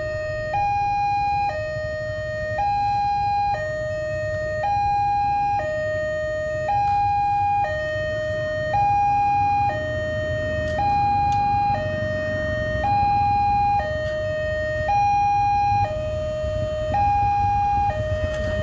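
Indonesian railway level-crossing warning siren sounding a steady two-tone hi-lo alternation, each tone held about a second, with a low rumble underneath. It signals that the barriers are down for an approaching train.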